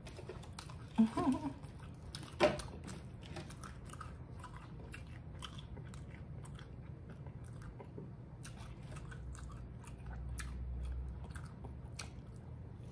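Close-up chewing and crunching of a fried egg roll, with many small wet mouth clicks and a sharper click about two and a half seconds in.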